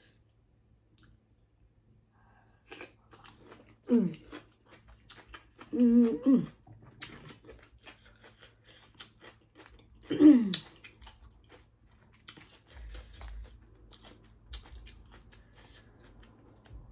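Close-up eating of king crab legs: shells cracking and clicking, with wet chewing and crunching. Three short voiced 'mm'-like sounds stand out about 4, 6 and 10 seconds in.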